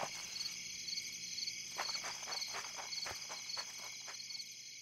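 Foley footsteps walking through mud: one step at the start, then a run of steps about every quarter to half second from around two seconds in. Behind them is a steady bed of chirping crickets.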